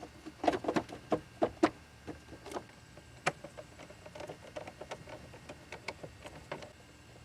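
Irregular clicks and light knocks of parts and tools being handled, busiest in the first couple of seconds and fading out near the end.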